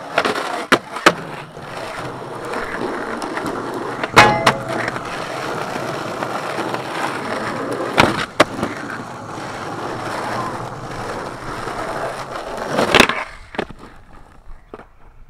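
Skateboard wheels rolling on asphalt, broken by sharp clacks of the board popping and landing about a second in, at about four seconds, about eight seconds as it rides onto a wall, and near thirteen seconds. The rolling dies away near the end.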